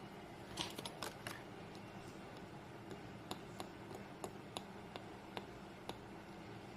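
Faint, irregular light clicks and taps of paper die cuts and crafting tools being handled on a work surface, a few close together near the start, then single ticks spaced a few tenths of a second apart.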